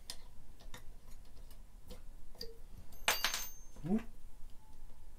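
Small clicks and taps of the plastic cover and housing of a Chicago Electric finger sander being fitted back on by hand, with a short burst of rattling about three seconds in.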